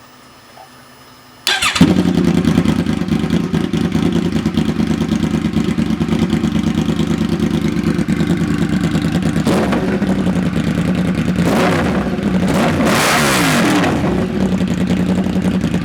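2009 Yamaha R1's crossplane inline-four motorcycle engine running with its exhaust removed, open headers with no muffler. It starts suddenly about a second and a half in and idles very loudly, with throttle blips rising and falling in pitch near the middle and again toward the end.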